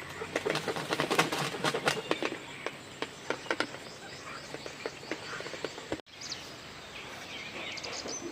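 Birds calling outdoors, with a run of irregular sharp clacks through the first few seconds and short chirping calls near the end.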